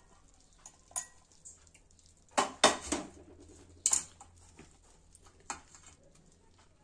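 Metal kitchenware clinking and knocking as a sieve and pan are handled while draining washed soya chunks: scattered knocks, with a cluster of louder clatters about two and a half seconds in and another sharp knock near four seconds.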